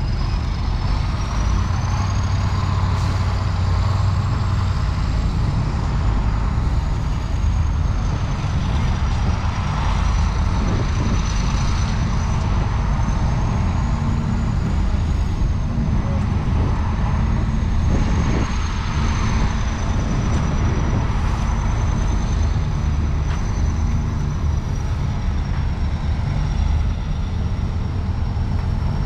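Heavy diesel road-construction machinery running steadily: a deep engine drone, with a thin high whine above it that drifts slowly up and down in pitch.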